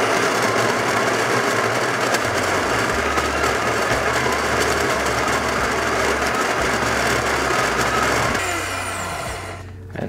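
WPM Welhome Pro ZD-10T electric conical burr grinder grinding coffee beans, a steady motor-and-burr whir. Coffee is being run through to season the burrs after a grinder-cleaning tablet. Near the end the motor winds down, falling in pitch, and stops.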